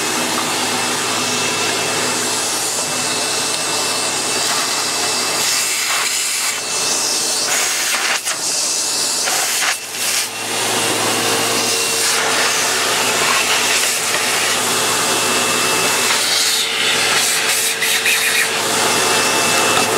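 Vacuum cleaner running steadily, sucking a clog of pine needles out through a Dyson Animal Ball 2's internal hose. Short rattly stretches come and go as debris is drawn through.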